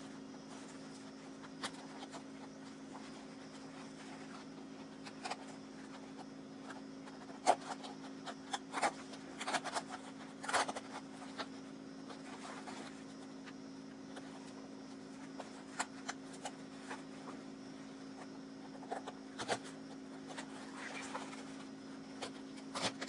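Seam ripper cutting the stitches of a Velcro strip on a fabric patrol cap, with the strip being pulled off: faint scattered ticks and small rustles, over a steady low hum.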